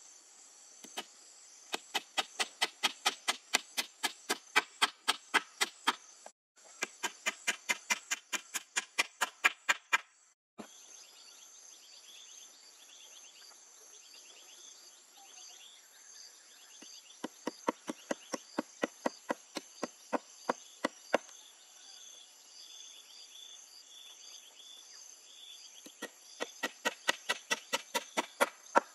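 Hammer striking the poles of a wooden frame in quick runs of blows, about four a second, stopping and starting four times. Insects drone steadily underneath.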